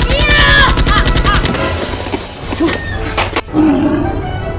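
A rapid burst of automatic gunfire, about a dozen shots a second, with a loud cry over its start. A few more quick shots follow about three seconds in.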